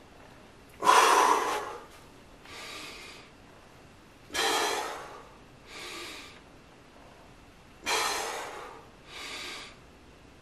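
A man breathing hard through a set of bent-over dumbbell Y raises: a loud, forceful breath out as each rep goes up, then a softer breath in. This happens three times, about every three and a half seconds.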